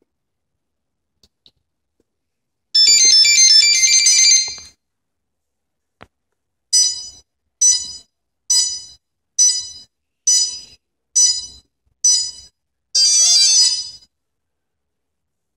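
DJI ESCs and 3DR Pixhawk electronics powering up on a quadcopter: a short startup melody of high tones, then seven evenly spaced single beeps about one a second, the ESCs beeping because the Pixhawk's flashing safety switch is cutting their signal. Near the end a second, busier chime sounds and the beeping stops, the sign that the ESCs now have signal and the craft can be armed.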